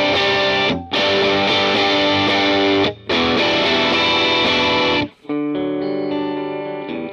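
Fender Telecaster through a Sawmill Jr. MOSFET overdrive pedal into a Vox AC15 amp, chords picked hard so the pedal breaks up into full distortion. The playing stops briefly about a second in, at three seconds and at five seconds. The last couple of seconds are quieter and less bright.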